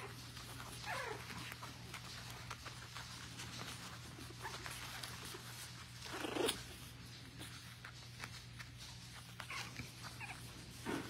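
Four-week-old puppies making small whimpers and yips: a falling whine about a second in and a louder yip about six and a half seconds in.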